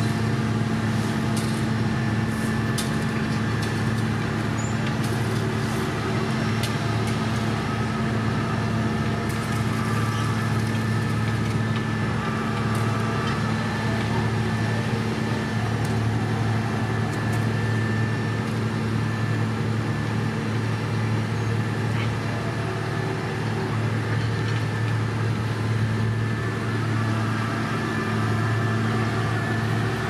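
Diesel engines of an asphalt paver and the dump truck feeding it running steadily, a constant low hum with scattered faint clicks.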